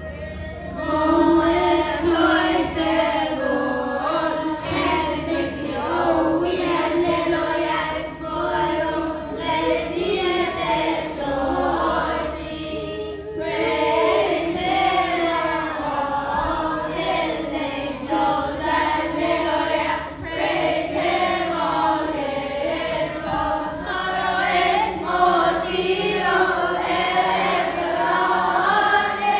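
Children's choir singing a hymn together, with a brief pause about thirteen seconds in.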